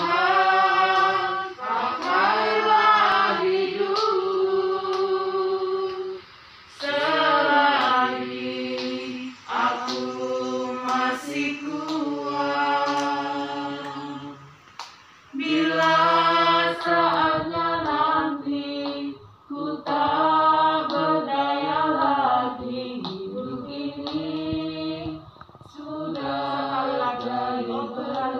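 Several people singing together unaccompanied, in long held phrases with short breaks between lines.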